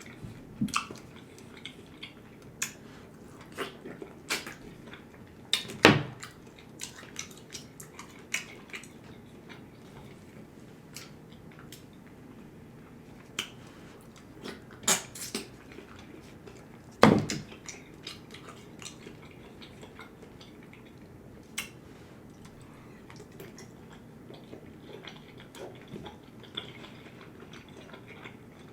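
Close-miked chewing and eating of a seafood boil: wet mouth sounds and many small clicks, with two louder sharp knocks about 6 and 17 seconds in.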